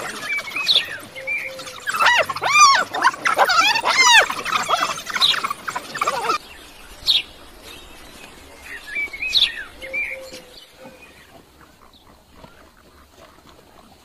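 African wild dogs and a spotted hyena squabbling: a dense run of high-pitched chirping, squealing calls that stops abruptly, then a few scattered calls that fade out near the end.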